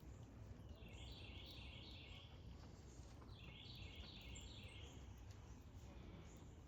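Faint bird song: two short phrases of quickly repeated chirping notes, about two seconds apart, over a low steady outdoor rumble.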